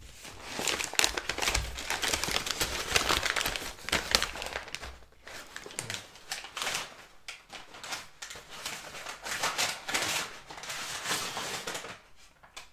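Popeyes takeout bag and its paper wrapping crinkling and rustling as they are opened and handled: a lot of noise, heaviest in the first five seconds, returning in bursts around six and ten seconds, and dying down near the end.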